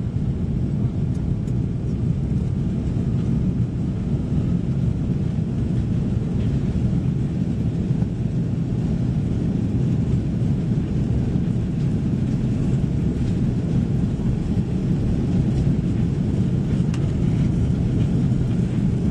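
Airbus A330 cabin noise while taxiing: a steady low rumble of the engines and the airframe rolling on the ground, heard from inside the cabin.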